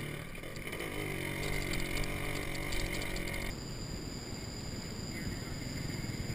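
Small underbone motorcycle engine running steadily while riding along a dirt track. About three and a half seconds in, the sound cuts abruptly to a rougher, more distant engine as a motorcycle approaches along a grassy track.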